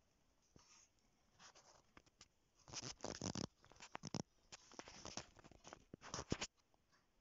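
Scratchy rustling and scraping handling noise in short irregular spells, loudest about three seconds in and again just after six seconds, then it stops abruptly.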